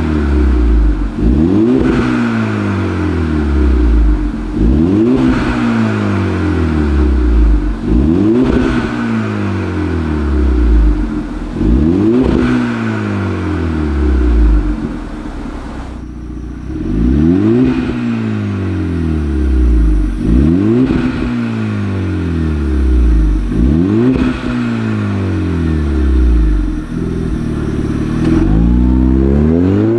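Skoda Fabia RS with a Tneer valved mid pipe and rear mufflers, valves open, revved in short blips about every two seconds. Each rev rises sharply and falls back. Near the end a longer rev climbs.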